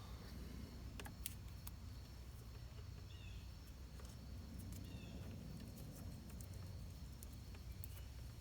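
Faint handling noise of wires being taped together: a few light clicks about a second in over a low steady hum, with two faint short high chirps around the middle.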